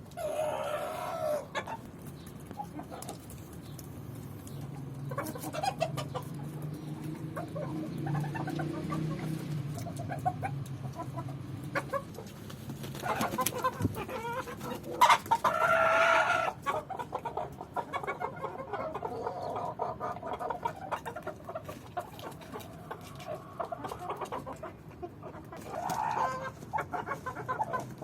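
Chickens clucking and calling, with the loudest, longest calls about thirteen to sixteen seconds in.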